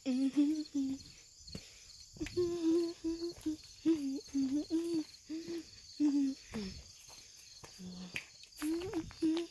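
Crickets chirping in a steady, high pulse, with a person humming a string of short, low, level notes over it.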